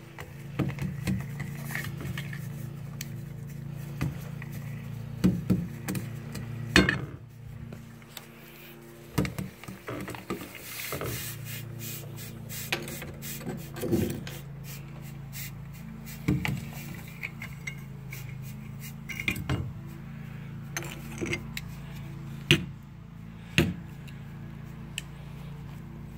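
Scattered sharp clicks and knocks as metal pliers handle brittle, liquid-nitrogen-frozen pieces of Line-X coating against a steel bowl and wood, over a steady low hum.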